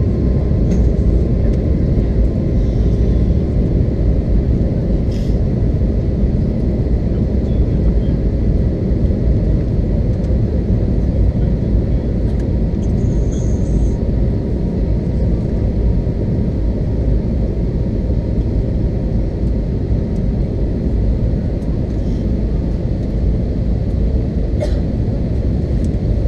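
Steady cabin noise of an Airbus A321 in flight on its landing approach: a loud, even rumble of the jet engines and the airflow, heard inside the cabin from a window seat behind the wing, with faint steady whining tones above it.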